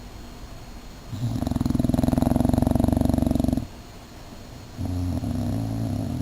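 English Bulldog snoring while asleep: a long, loud, rattling snore about a second in, then a second, softer snore near the end.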